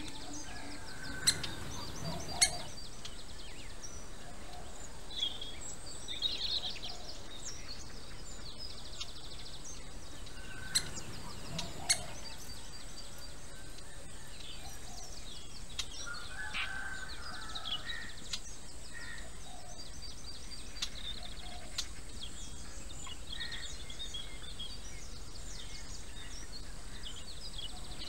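Birds chirping and calling in woodland over a steady outdoor hiss. Four sharp clicks or knocks stand out, two within the first few seconds and two near the middle.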